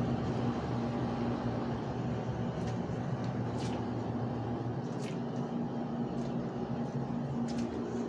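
Air-conditioner outdoor unit running: a steady low hum under an even fan-like rush, with a few faint clicks.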